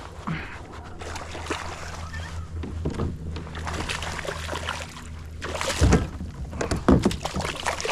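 A hooked snook being fought and brought to a kayak: water sloshing and splashing with scattered small clicks and knocks, and two louder sudden thumps or splashes about six and seven seconds in.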